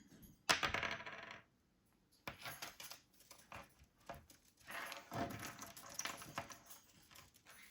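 Ring-toss rings clinking and clattering as a green-cheeked conure handles them with its beak. A sharp clatter comes about half a second in, then a run of lighter clicks and rattles.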